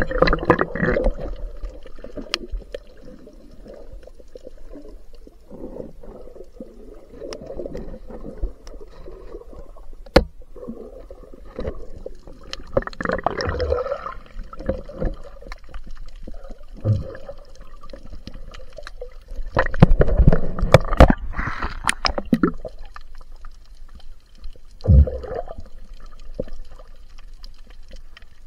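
Water gurgling and sloshing around a camera held underwater, with several louder surges of water noise and a sharp knock about ten seconds in.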